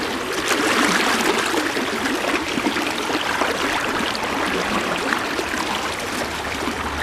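River water flowing fast and heavy in high water, a steady splashing wash with small gurgles.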